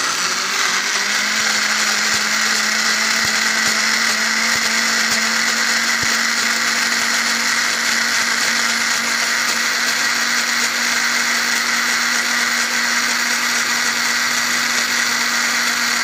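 Philips HL1632 500-watt juicer mixer grinder running steadily with its juicer jar and mesh filter basket, spinning tomatoes into juice. The motor's hum rises slightly about a second in and then holds a steady pitch.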